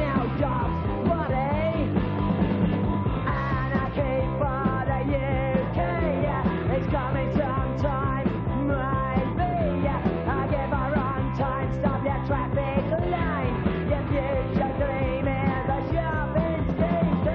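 Punk rock band playing at full tilt: electric guitar, bass and drums under a shouted, sneering lead vocal.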